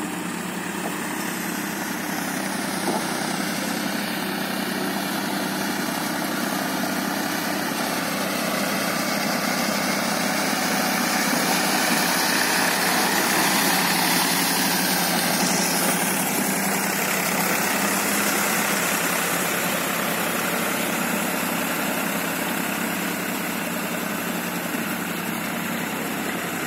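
Powertrac tractor's diesel engine running steadily as it pulls a rotavator through wet paddy mud, a little louder in the middle as it passes close.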